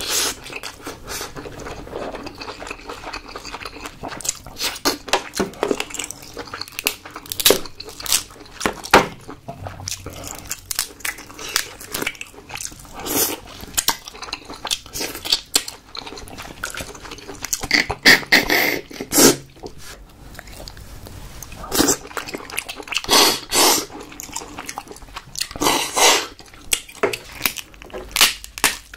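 Close-miked mouth sounds of a person eating king crab meat: irregular wet chewing and lip-smacking with short clicks, and several louder, longer wet bursts in the second half.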